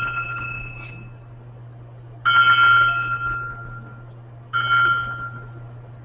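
Electronic bell-like chimes from a bike-share data sonification, each tone standing for one bike trip at a station. One chime fades out, then two more strike about two seconds in and again past halfway, each ringing briefly and dying away, over a steady low hum.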